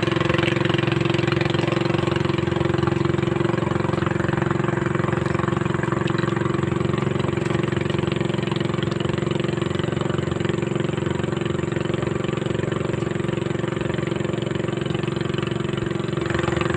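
A small engine running steadily at an even speed, with a constant hum and no rise or fall in pitch.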